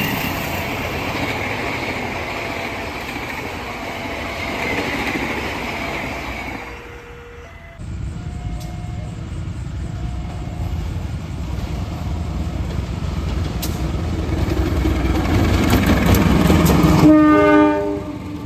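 Train rumbling along the track, the sound breaking off and starting again abruptly about eight seconds in, then a locomotive horn sounding for about a second near the end.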